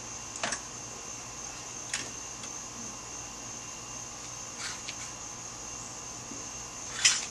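Scattered light clicks and knocks from hands and tools working on an engine being hoisted out of the engine bay, the sharpest one near the end, over a steady high-pitched hiss.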